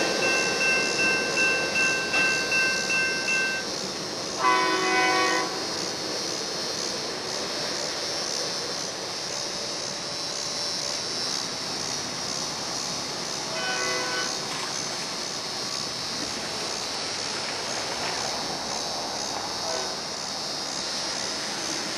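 The tail end of a freight train rolls past, its wheels clacking in a steady rhythm under a high squeal; this stops after about three and a half seconds. A train horn then sounds a loud blast of about a second, and a fainter one comes near fourteen seconds in, over a steady hiss.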